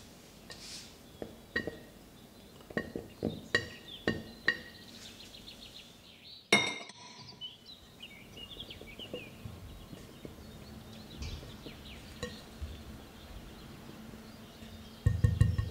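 Dishes, glassware and utensils clinking during baking: a run of light clinks, one sharp knock about six and a half seconds in, and a burst of low thudding near the end.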